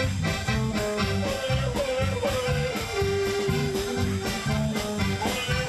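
Upbeat German band music, with accordion over a steady oom-pah bass beat.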